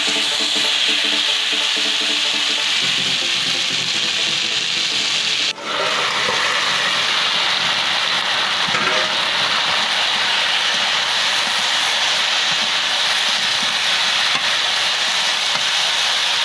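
Potatoes, cauliflower and tomato sizzling steadily as they fry in oil in an iron kadai, stirred now and then with a metal spatula. The sound breaks off for an instant about five and a half seconds in, then carries on.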